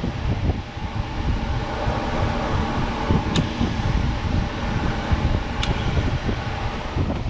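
Steady machine hum and low rumble, with two short sharp clicks, the second as side cutters snip the step light's wire near the end.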